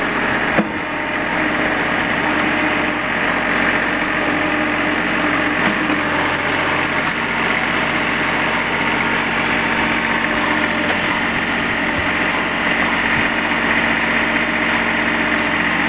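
Kubota B21's three-cylinder diesel engine running steadily, with one sharp click about half a second in.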